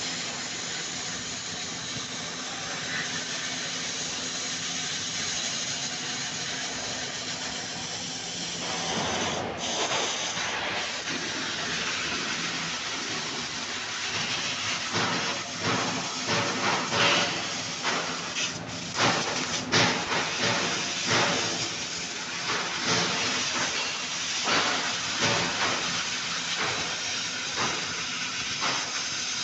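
CNC laser cutting machine running: a steady hiss of air with a low hum underneath. From about nine seconds in, the hiss turns uneven, swelling and dropping in quick irregular bursts.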